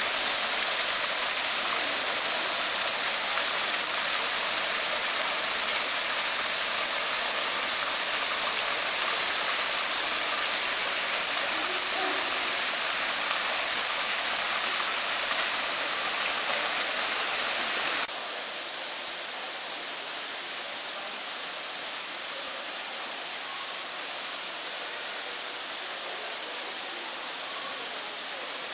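Small waterfall splashing over mossy rocks into a pool: a steady rush of falling water. About two-thirds of the way in it drops abruptly to a quieter, steady flow of water.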